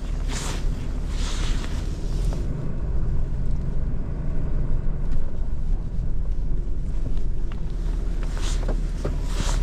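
Tow truck engine running steadily at low speed while the truck is turned around and backed up, with a few short hissing bursts near the start and again near the end.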